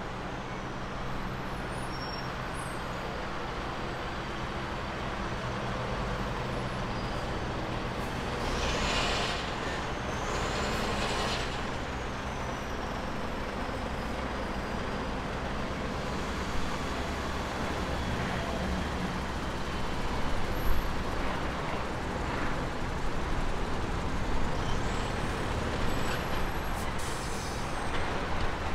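Road traffic from a queue of idling trucks and cars: a steady low diesel engine hum, with two bursts of hiss about nine and eleven seconds in from truck air brakes.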